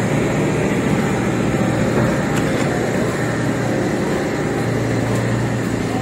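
Steady low rumble of heavy construction machinery, a diesel engine running without change.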